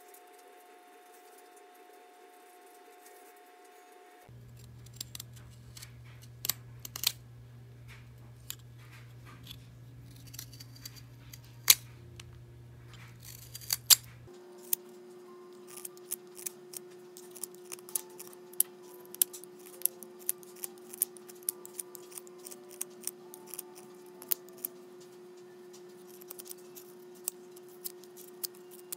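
A straight-bladed carving knife shaving a spalted-wood lure blank, making sharp, crisp snicks, about one or two a second, as each chip is cut. The first few seconds hold only faint room tone before the cutting starts.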